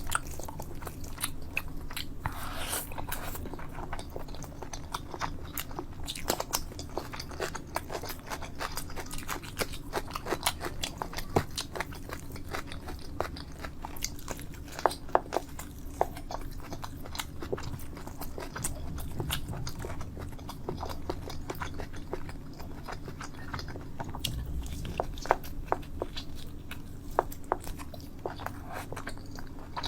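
Close-miked chewing and biting, with many irregular sharp wet mouth clicks, over a faint steady low hum.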